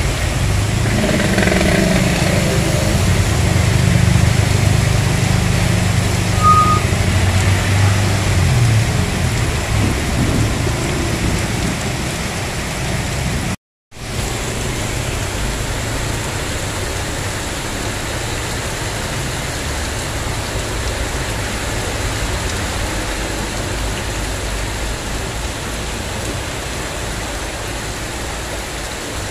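Heavy downpour hissing steadily onto a flooded street, with vehicles driving through the standing water. A vehicle engine drones past in the first several seconds, a short beep sounds about six seconds in, and the sound drops out briefly near the middle.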